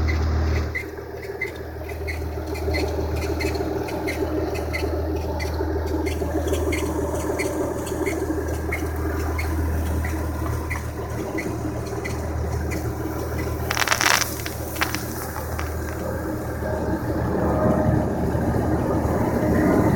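Hyundai G6BA 2.7-litre V6 engine running steadily, with its accessory drive belt squeaking in short, regular chirps about twice a second. A loud noisy burst comes about 14 seconds in.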